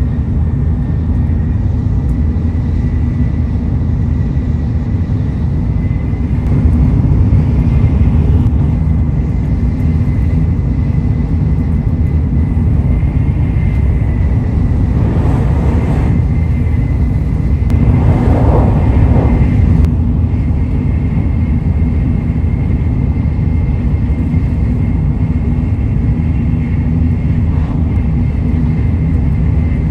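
Tokaido Shinkansen Nozomi running at speed, heard inside the passenger cabin: a steady low rumble with a faint steady whine above it. Two brief louder rushes of noise come about halfway through.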